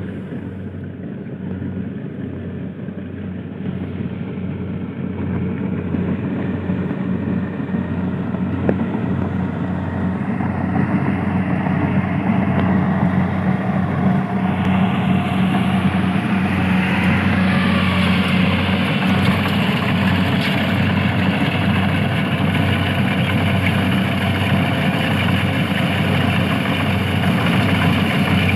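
An engine running steadily, growing louder over the first dozen seconds, with a higher rushing noise joining about halfway through.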